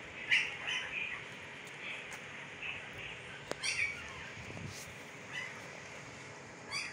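Two-week-old Siberian husky puppies squeaking and whimpering while they suckle: short high squeaks, one after another at irregular intervals, with a single sharp click about three and a half seconds in.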